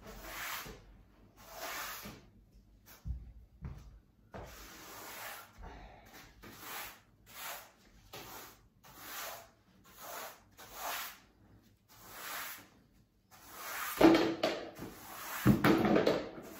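Soft-bristled broom sweeping a hard floor: brushing strokes about once a second, with two louder scrapes and knocks near the end.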